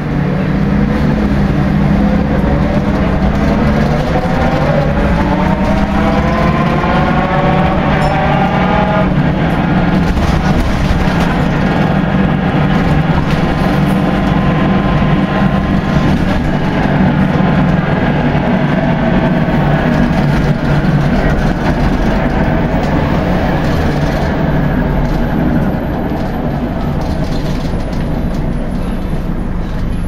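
Volvo B10BLE Wright Renown bus heard from inside the saloon while under way: loud drivetrain running noise with a whine that rises in pitch twice as the bus picks up speed. The bus is said to be sounding like a washing machine, which the uploader guesses is a failed differential.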